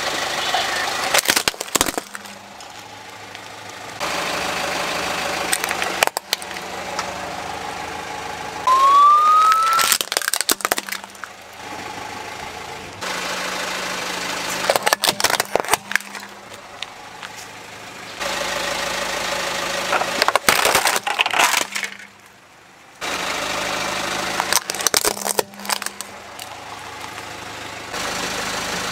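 Car tyre rolling onto plastic toys and crushing them: repeated clusters of cracking and snapping plastic, in short clips a few seconds long with abrupt cuts between them. A brief rising squeak about nine seconds in.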